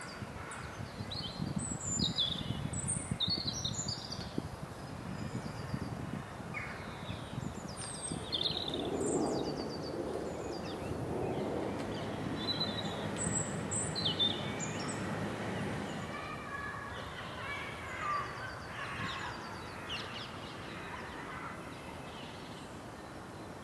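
Birds chirping and calling again and again over a steady background rumble of outdoor noise.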